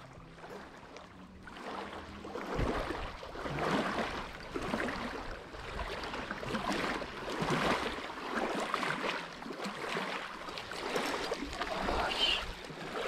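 Small waves lapping and splashing against the lake shore, an uneven wash that swells and falls about once a second.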